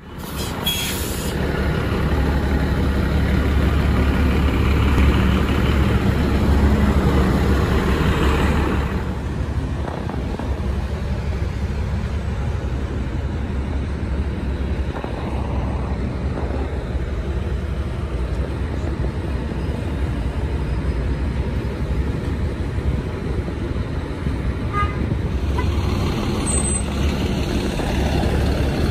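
Transit bus engines running with a deep steady rumble, louder for the first several seconds, and a short burst of air-brake hiss about half a second in.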